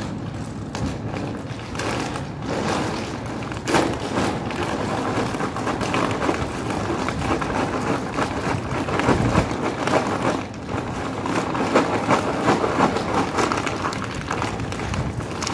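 A plastic dog-food bag rustling and dry kibble rattling out of it as it is poured for dogs, with many small clicks and crackles and a sharper knock about four seconds in, over a steady noisy background.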